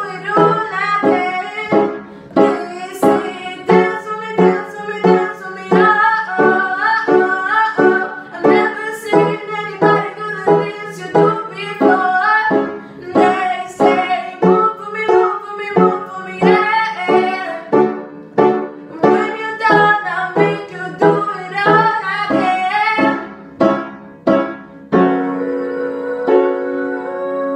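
Music: a woman singing over a backing track of steady keyboard chords struck about twice a second. Near the end the chords give way to a held keyboard chord.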